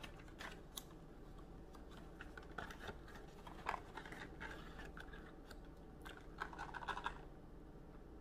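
Faint clicking and crinkling of a cardboard box of peanut M&M's being torn open and handled, in scattered small bursts with a louder cluster of rustles near the end.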